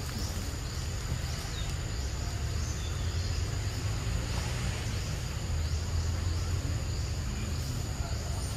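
Forest ambience: a steady high insect drone with short high chirps repeating about once a second, over a steady low rumble.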